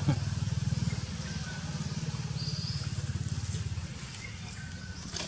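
A small engine running at a steady low idle, a pulsing hum that fades about four seconds in, with a few faint short high chirps above it.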